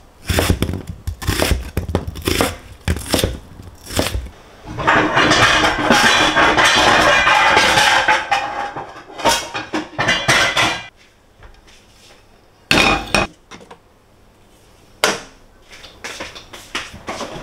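Kitchen utensils and dishes clattering and knocking during home cooking. A quick run of knocks is followed by about three seconds of steady rushing noise, then a few more separate knocks.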